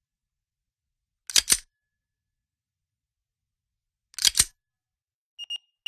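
Two sharp double clicks, about three seconds apart, each two quick clicks close together. Near the end, short high electronic beeps begin.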